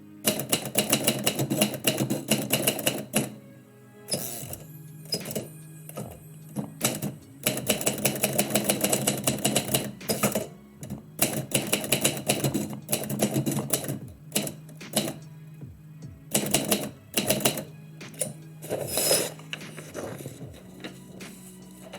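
Typewriter keys striking in quick runs of rapid clacks, broken by short pauses, as a poem is typed out. Background music plays underneath.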